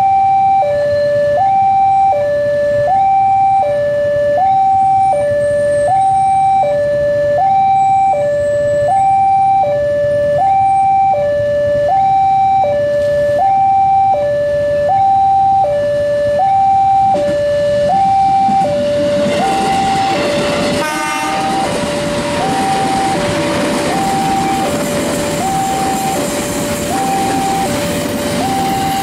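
Level crossing warning alarm sounding a repeating two-tone high-low signal, about one cycle every second and a half. From a little past the middle, the rumble and rattle of a KRL commuter electric train passing close by rises under it, with a short clatter about two-thirds through.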